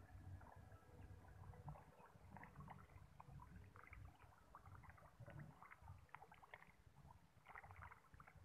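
Near silence by the water's edge: a faint low rumble with scattered faint small ticks.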